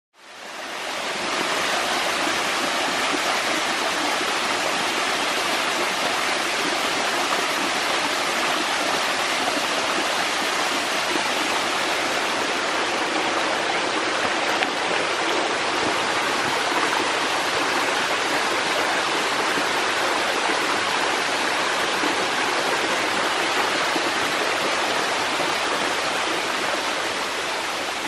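Rushing water of a rocky forest stream with small waterfalls, a steady rush that fades in over the first second.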